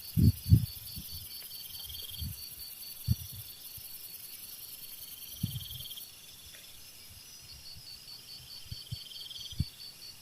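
Night-time insect chorus: crickets chirping in even, repeating pulses, with a steady high-pitched insect buzz that drops out about six seconds in. A few soft low thumps fall in between.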